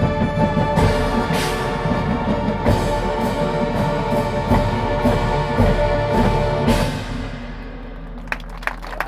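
High school marching band with brass and front-ensemble percussion, including timpani, holding a loud sustained chord punctuated by accented hits, cutting off about seven seconds in and ringing away. Audience applause starts near the end.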